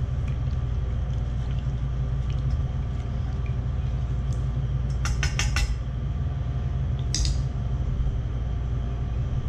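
Wooden spoon stirring a thin sauce in a stainless steel mixing bowl, with a quick run of four or five clicks against the bowl about halfway through and a short scrape a couple of seconds later, over a steady low hum.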